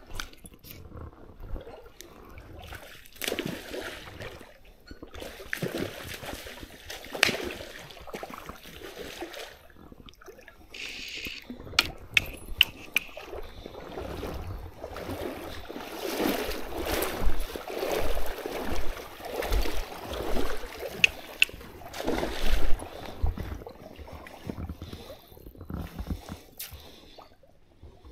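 Water splashing and sloshing in irregular bursts, with a few sharp clicks.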